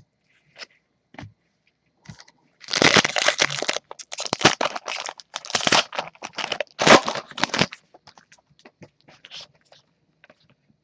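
A foil Panini Prizm basketball card pack torn open by hand, its wrapper crinkling and tearing loudly for about five seconds, with a few small clicks and rustles of handling before and after.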